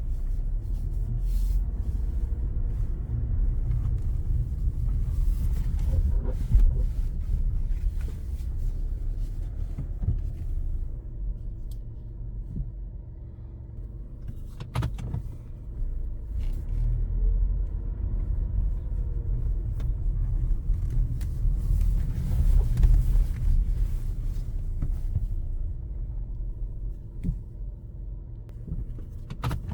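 Toyota RAV4 with a low, steady rumble, and short intermittent squeaks and clicks coming from the vehicle.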